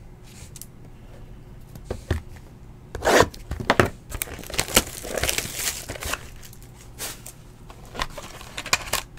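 Paper and cardboard being handled: irregular rustling, crinkling and scraping with light clicks as a paper insert sheet is shuffled and a Panini Infinity Football card box is opened.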